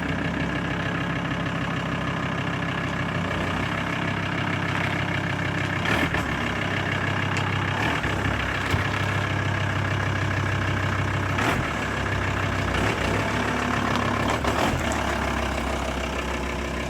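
A vehicle engine running steadily at low revs, with a few sharp clicks or knocks along the way.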